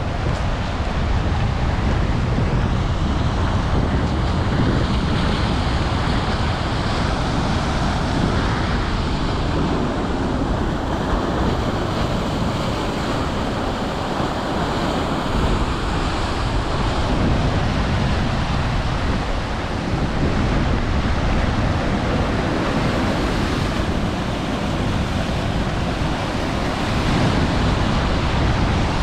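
Steady noise of wind and sea waves, with wind buffeting the microphone.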